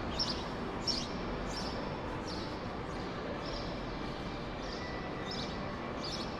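Steady outdoor street noise with short high chirps repeating evenly, about one every three-quarters of a second.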